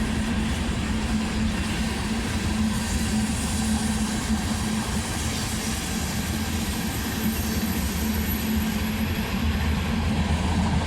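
A train passing close by: a steady, loud rumble of the rolling train with a low hum underneath, unchanging throughout.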